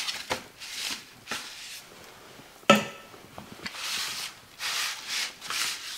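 Hands rubbing dry spice rub into raw beef short ribs on an aluminum sheet pan, a series of soft swishing strokes, with one sharp knock about halfway through.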